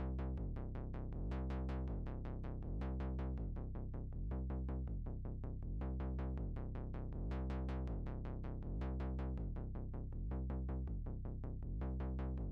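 Electronic background music with a steady beat, about three strokes a second, over a low bass line.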